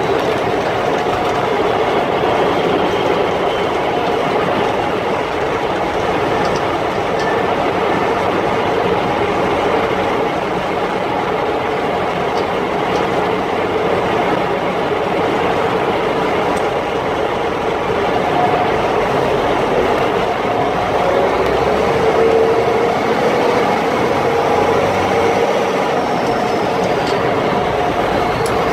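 M35A2 2½-ton military truck's multifuel inline-six diesel running as the truck drives, heard from inside the cab. It makes a steady, loud drone mixed with drivetrain and tyre noise, and a faint whine slides in pitch near the end.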